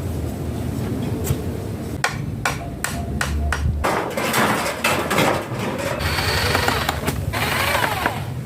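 Hammer blows on wood, a quick run of about six strikes a couple of seconds in, with rougher scraping and handling noise of the work after them.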